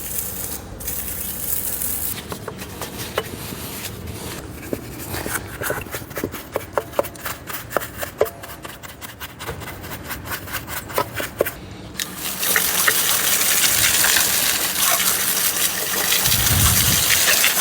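Engine degreaser being applied to a removed intake manifold: scattered drips and clicks, then a steady spraying hiss from about twelve seconds in.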